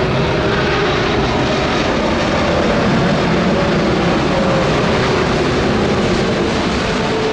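An airplane flying over: a loud, steady rush of engine noise with a faint drifting hum.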